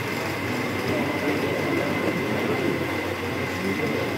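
Steady hubbub of many people talking at once in a crowded room, with a thin steady high tone running under it.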